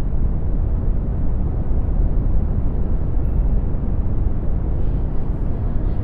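Synthetic brown noise: a steady, deep rumbling hiss weighted heavily to the low end. Near the end another faint sound begins to fade in over it.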